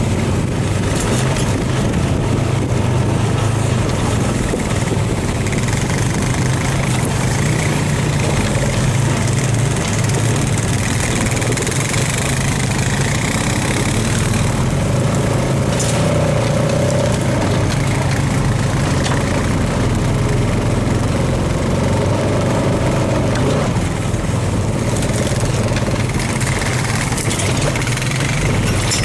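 Engine of a 2015 Honda FourTrax Foreman Rubicon 4x4 ATV, a single-cylinder four-stroke, running steadily while the machine rides over a rough dirt trail, heard close up from the machine itself.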